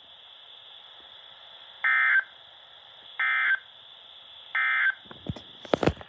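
Emergency Alert System end-of-message data bursts from a NOAA weather radio's speaker: three short, identical digital squawks about a second and a half apart over faint radio hiss, signalling that the warning broadcast is over. A few sharp handling clicks near the end.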